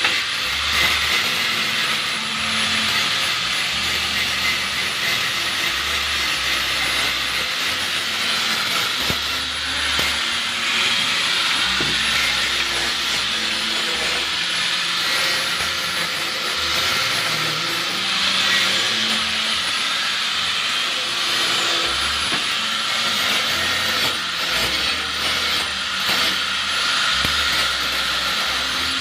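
Steady, harsh hissing noise of metalworking tools, an angle grinder or an arc welder, running without a break.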